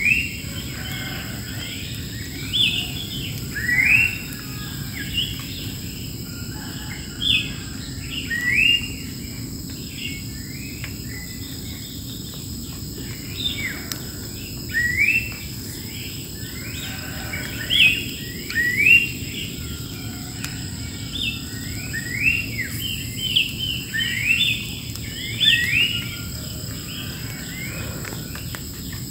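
Wild birds singing, a busy chorus of short rising chirps coming one after another. Behind them runs a steady high insect drone.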